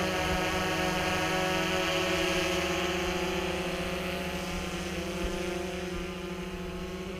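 DJI Phantom 3 quadcopter's propellers whirring in a steady multi-toned buzz as it hovers, growing fainter from about four seconds in as it drifts away.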